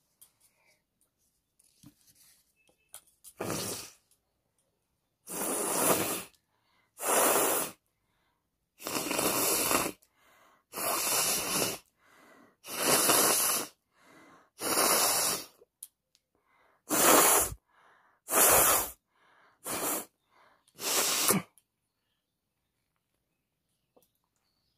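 A person sneezing again and again, about eleven loud sneezes in a row, each followed by a short pause.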